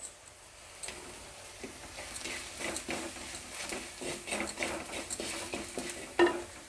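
A spoon stirring and scraping frying onions and spices in a clay pot, a run of light irregular scrapes and clicks, with one sharper knock near the end.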